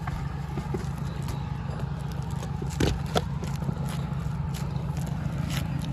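Scattered clicks, knocks and scrapes from work on an asphalt shingle roof, two sharper knocks about three seconds in, over a steady low hum.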